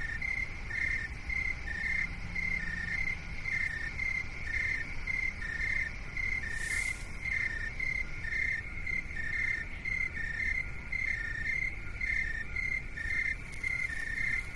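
Rhythmic high chirping: short chirps repeating evenly in two interleaved series of slightly different pitch, over a steady low rumbling noise, with a brief hiss about halfway through.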